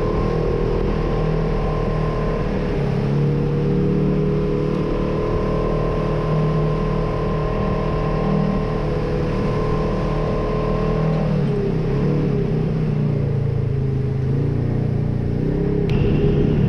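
Polaris RZR side-by-side's twin-cylinder engine running steadily under way, heard from inside the cab, its pitch dropping and wavering about eleven seconds in as the machine slows, then holding steady again.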